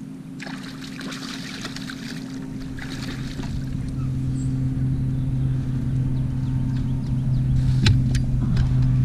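A motor on a bass boat running with a steady low hum that grows louder. Two sharp knocks come near the end.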